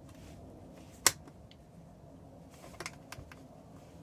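A sharp plastic click about a second in, then a few fainter clicks a little later, from a Fluke 10 digital multimeter being handled: its case pressed and its selector switch worked.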